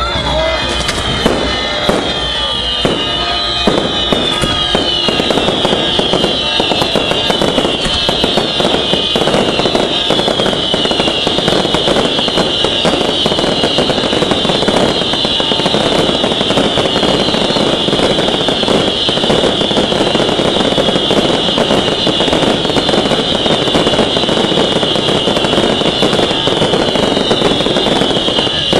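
Daytime festival fireworks barrage: a dense, unbroken stream of firecracker cracks and bangs, with many high whistles over it that keep sliding down in pitch.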